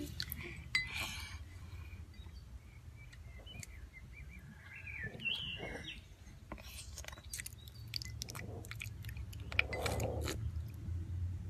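A toddler chewing and smacking while eating, with small mouth clicks over a steady low hum. A few short, high chirping sounds come about halfway through.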